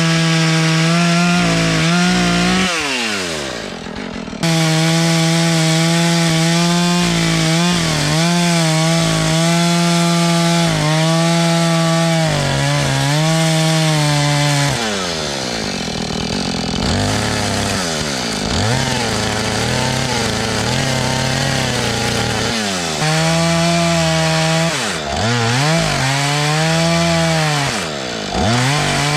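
Gas chainsaw cutting wood at full throttle. The engine pitch sags and recovers again and again as the chain bogs in the cut, and falls away when the throttle is let off about three seconds in and again around the middle.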